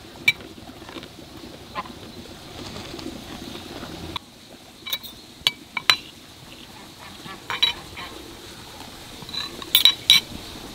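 Spoons and forks clinking and scraping against plates as people eat, a few sharp clinks scattered through, bunched together in the middle and again near the end.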